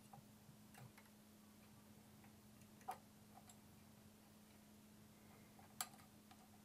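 Faint metallic clicks of a piston ring and ring expander pliers as the ring is spread over a piston and guided towards its groove: a few light ticks, the two sharpest about three seconds apart, over a low steady hum.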